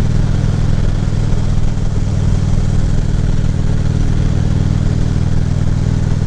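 Harley-Davidson Ultra Classic Limited V-twin motorcycle engine running steadily while riding, with no change in revs.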